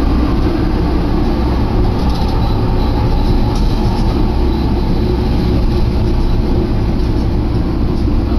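Diesel railcar running, heard from inside the passenger cabin: a steady, loud, low rumble.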